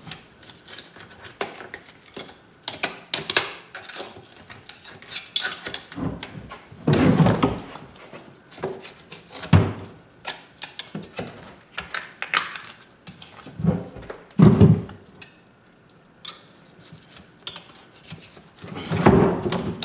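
Irregular knocks, thunks and clicks of a boiled longhorn bull skull being turned, lifted and bumped against a plastic utility sink while meat is pulled off it by hand, with a few heavier thuds among them.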